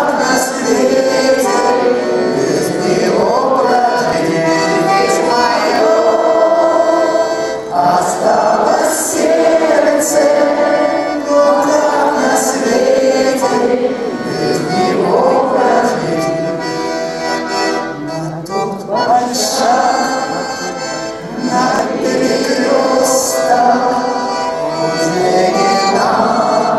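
A man singing a song to his own garmon (Russian button accordion) accompaniment, the garmon holding steady chords under the voice.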